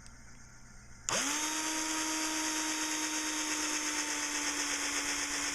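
Electric drill starting about a second in and spinning quickly up to a steady whine while it drills the pop-rivet hole through the overlapping sections of antenna element tubing.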